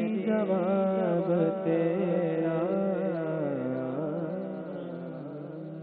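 Male naat reciter singing the closing phrase of an Urdu naat, drawing the melody out in long, ornamented curls of pitch. The voice grows steadily quieter toward the end as the naat finishes.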